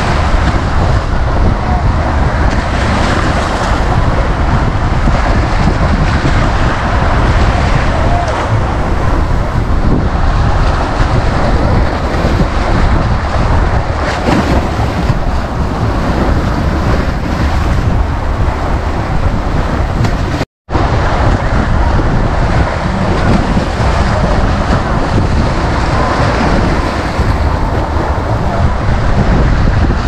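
Small sea waves breaking and washing up a sandy beach, a steady surf with wind rumbling on the microphone. The sound drops out completely for a split second about two-thirds of the way through.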